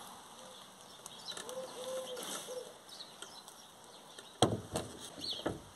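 A dove cooing, several soft low coos in the first half, with faint small-bird chirps. About four and a half seconds in come a few sharp knocks, the loudest sounds, as the wooden skylight frame is handled.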